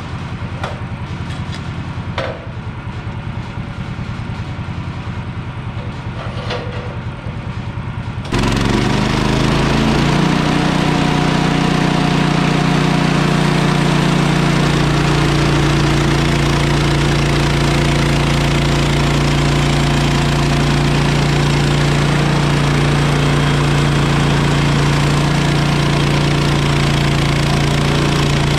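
Kohler engine of a Woodland Mills portable band sawmill idling with a few knocks. About eight seconds in it jumps abruptly to a louder, steady high-speed run as the band blade saws lengthwise through a log.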